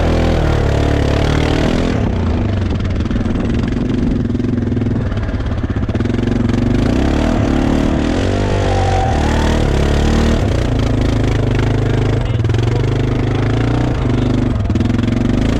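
Quad bike engine running steadily, its pitch rising and falling briefly about eight seconds in as it is revved.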